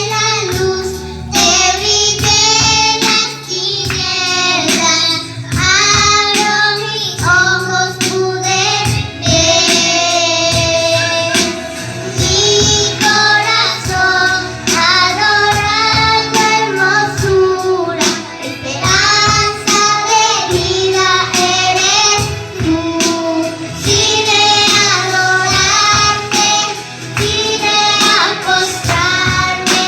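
A young girl singing a devotional song to God over instrumental backing.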